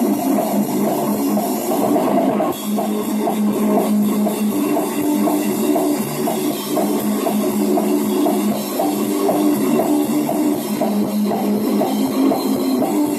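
Rock band playing: electric guitar and drum kit in a steady rhythm.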